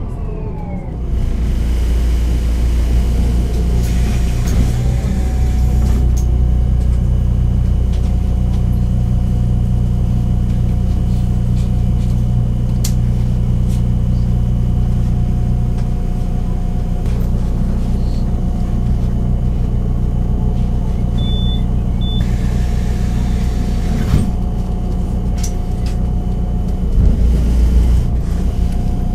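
Solaris Urbino 12 city bus engine running steadily with an even low hum and a faint constant whine over it. A falling whine settles in the first second, and there is a short louder swell near the end.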